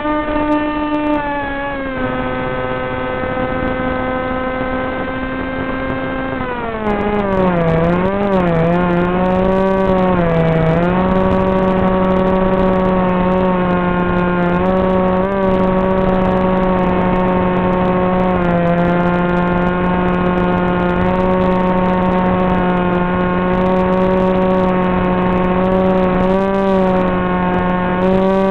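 Turnigy 2826 2200kv brushless motor and propeller of a Wing Wing Z84 FPV flying wing droning in flight. The drone holds a steady pitch, drops about six seconds in and wavers up and down for a few seconds with throttle changes, then holds a lower steady pitch.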